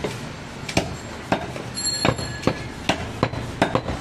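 Goat mutton being chopped with a heavy blade: a run of sharp chopping strokes at uneven intervals. A brief high ringing tone sounds about halfway through.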